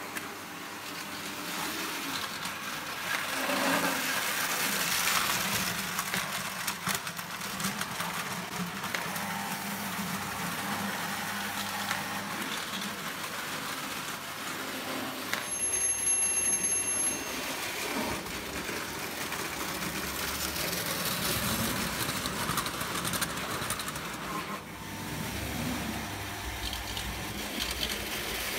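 O gauge toy electric trains running on the layout: motors humming and metal wheels clattering over tinplate track, with many small clicks. A brief high tone sounds about halfway through.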